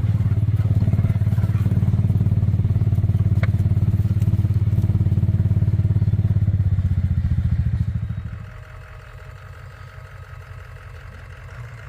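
John Deere 1023E compact tractor's three-cylinder diesel engine running with a steady low throb, then going much quieter about eight and a half seconds in.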